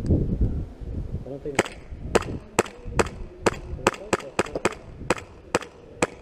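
Airsoft pistol shooting about a dozen sharp shots in a row, two to three a second, starting about a second and a half in.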